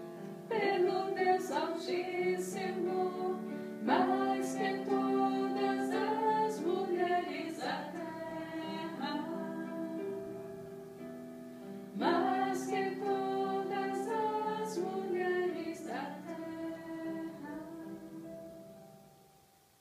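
Music: a woman singing a slow devotional song over guitar accompaniment, fading out near the end.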